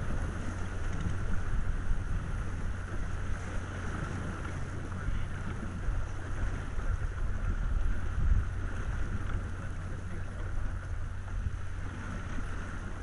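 Wind rumbling steadily on the microphone over the hiss of water rushing past the hull of an Elvström 717 keelboat under sail.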